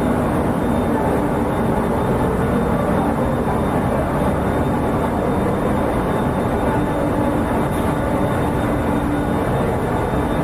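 Steady low rumble and hum of a ferry's engines and machinery, heard on the enclosed car deck.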